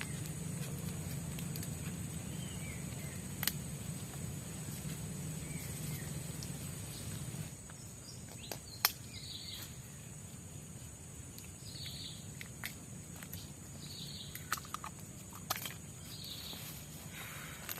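Tropical forest ambience: a steady high-pitched insect drone, with scattered sharp clicks and short chirping calls that come in during the second half.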